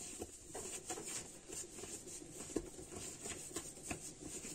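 Soft, irregular taps and light rustles of hands working pizza dough on parchment paper.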